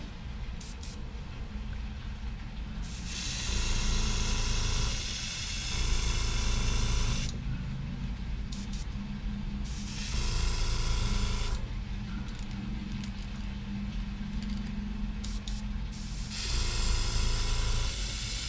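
Iwata airbrush spraying paint in three hissing bursts, the first about four seconds long, a shorter one near the middle and another near the end, as it lays a final coat on a lure. A low steady hum runs underneath.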